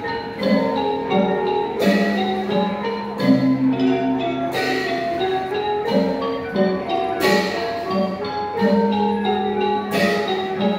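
Thai piphat mon ensemble music: mallet instruments such as the ranat xylophone and the khong mon gong circle play a busy running melody, with a crash every two to three seconds.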